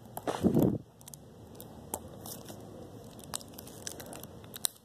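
Plastic blister packaging being bitten and pulled at with the teeth, crackling and clicking in small scattered bursts. There is a short louder burst about half a second in.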